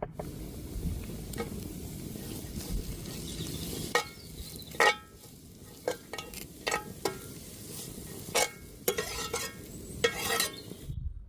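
Food sizzling over a wood fire, a steady hiss, with about a dozen sharp clinks that ring briefly, most of them in the second half. The sound stops abruptly near the end.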